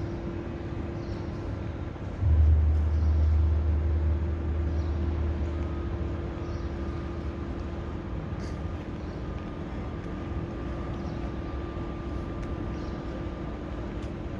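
Steady background hum with a constant low tone, and a deep rumble that starts suddenly about two seconds in and fades away over the next several seconds.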